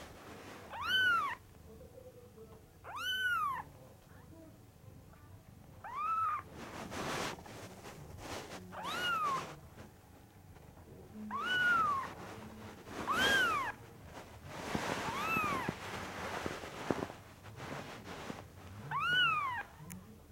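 A very young Norwegian Forest Cat kitten mewing: about eight short, high-pitched mews spread a second or more apart, each rising and then falling in pitch.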